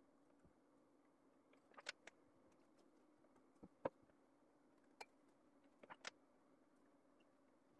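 Near silence with a handful of light, scattered clicks and crackles as thin phyllo sheets are handled and laid into a baking tray; the sharpest click comes about four seconds in.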